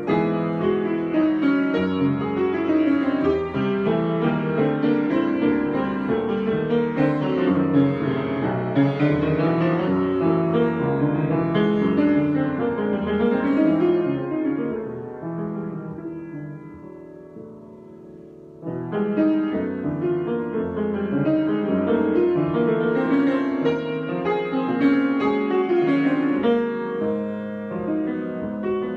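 Solo piano improvising, a steady stream of notes and chords. Midway the playing thins and dies away to a fading sustained chord, then about two-thirds in it starts up again suddenly.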